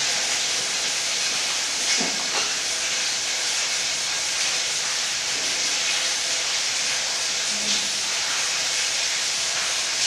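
A steady, even hiss with no change in pitch or level, and a couple of faint knocks about two seconds in.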